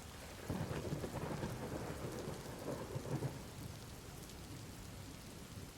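Steady rain falling with a low roll of thunder that swells about half a second in and dies away after about three seconds.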